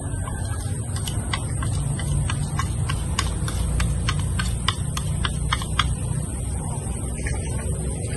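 Chopsticks scraping and tapping against a bowl while satế chili paste is worked out onto frogs: a quick, even run of light clicks, about three a second.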